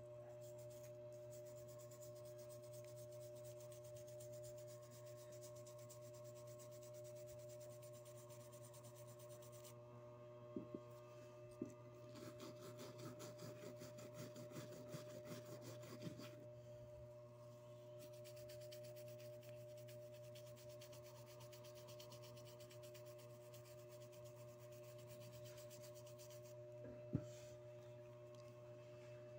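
Toothbrush bristles scrubbing a small metal collar pin with metal polish on a cloth: a few light taps, then a few seconds of scratchy brushing in the middle, with one sharp click near the end. A faint steady hum runs underneath.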